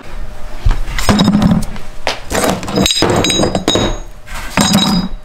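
Steel angle-iron brackets, bolts and bearings clanking and clinking together as they are picked up and handled, in several bunches of sharp metallic knocks with a high ring.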